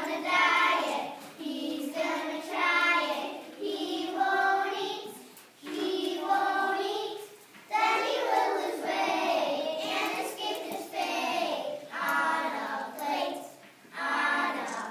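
Young children singing a song, in short phrases with brief pauses between them.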